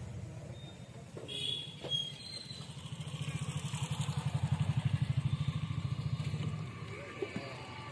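A motorcycle engine passing by on the road, a low pulsing note that swells about halfway through and then fades away. A few light knocks come in the first couple of seconds.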